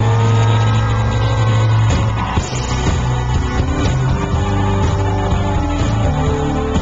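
Live synth-pop song played loud over a festival stage PA, with a heavy sustained synth bass that changes note every second or two, recorded through a pocket camcorder's microphone.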